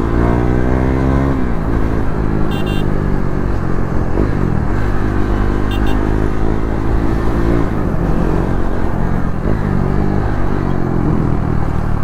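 KTM Duke single-cylinder motorcycle engine running under way, its pitch falling about a second in as the bike slows, with crackling from the exhaust on deceleration. Wind and road noise run underneath.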